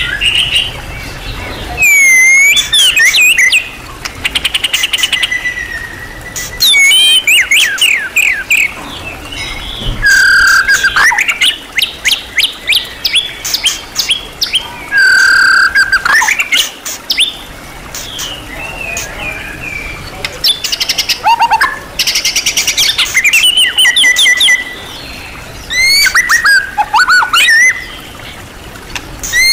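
White-rumped shama (murai batu) singing a varied, mimicry-rich song: loud phrases of a second or two made of whistles, fast trills and sharp down-slurred notes, with quieter chatter between them.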